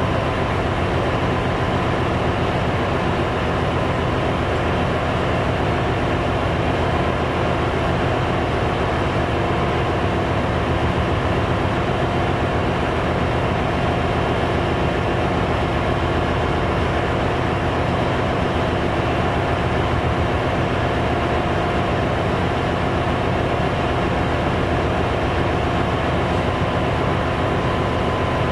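Steady noise of a ship's engine room, with auxiliary machinery running and a few steady tones over a broad, even hum. The main diesel engine is not the source: it is stopped, its crankcase doors open for inspection.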